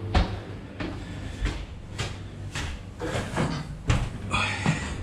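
Clattering metal knocks and rattles from handling at an old goods lift, roughly one every half second over a steady low hum, with a short scraping screech a little over four seconds in.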